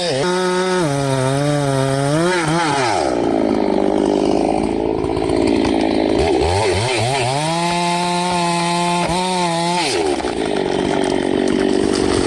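Chainsaw engine revving high and then bogging into a rougher, lower sound as the chain cuts into wood. This happens twice: about three seconds in and again near ten seconds.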